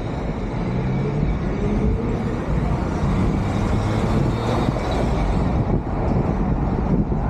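A BMW 4 Series convertible driving with the top down through city traffic: steady engine and road noise with other traffic around, the engine note rising about a second in as it accelerates.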